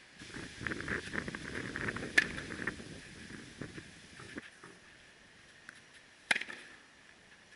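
Tennis ball struck with a sharp pop about six seconds in, with another sharp ball impact about two seconds in. A scuffing, crackling noise fills the first three seconds.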